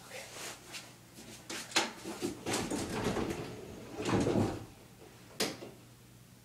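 A person shutting himself into a bedroom closet: a closet door sliding and knocking, with rustling and scattered clicks and bumps, and a single sharp click about five seconds in.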